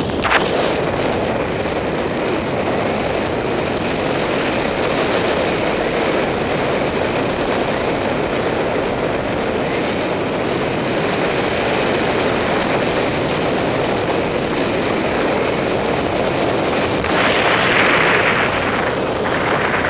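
Steady rush of air over the camera microphone of a paraglider in flight, getting louder for a couple of seconds near the end.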